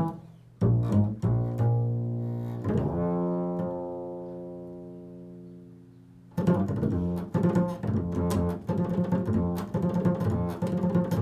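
Improvised solo music on a low-pitched plucked string instrument. A few plucked notes lead into one long note that rings and fades away, then a quick run of plucked notes starts about six seconds in.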